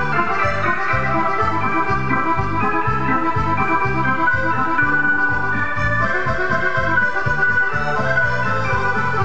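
Chromatic button accordion playing a dance tune live, over keyboard accompaniment with a steady pulsing bass beat.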